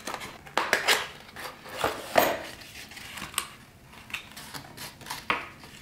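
Small cardboard accessory box being opened and handled, with a few sharp knocks and scrapes, the loudest about two seconds in. The bagged metal mounting parts inside clink as it moves.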